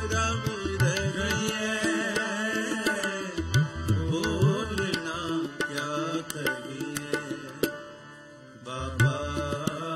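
Sikh kirtan music: harmonium drones and melody under a sliding, sung line, with tabla keeping time, its bass drum strokes gliding up in pitch. The tabla drops out and the music thins briefly near the end, then picks up again.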